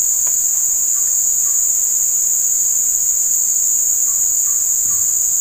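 Steady, loud, high-pitched drone of a chorus of insects in the riverside trees, unbroken throughout. A few faint short chirps come about a second in and again near the end.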